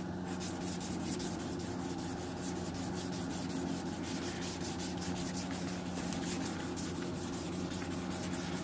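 Hand wet sanding of automotive clear coat with wet sandpaper on a sanding block: quick, even back-and-forth rubbing strokes, several a second, levelling a paint run. A low steady hum runs underneath.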